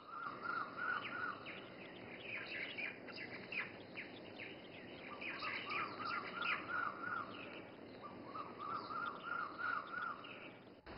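Birds chirping in the background: one bird's short trill, repeated three times, with scattered higher chirps between.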